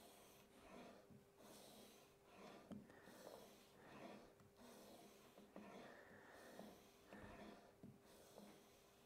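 Plane blade in a roller honing guide being stroked back and forth on 9-micron abrasive film on glass, wetted with honing oil: faint, even, rasping strokes about every half second at the polishing stage of sharpening.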